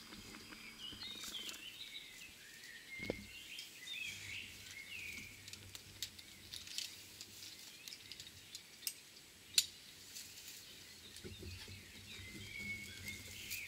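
Birds chirping and twittering in a faint, steady chorus of short calls, with a knock about three seconds in and a few sharp clicks.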